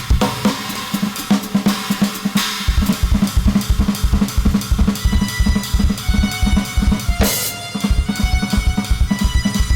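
Improvised drum kit playing: rapid, busy bass drum strokes under snare hits and cymbals, with a cymbal crash a little past seven seconds in.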